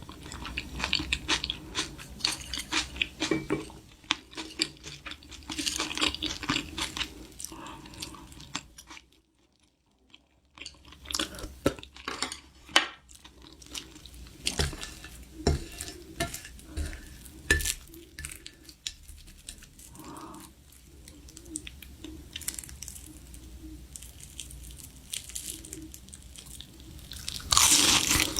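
Close-up crunching and chewing of food, bite after bite, with a short silent break about a third of the way through. A louder rushing noise starts just before the end.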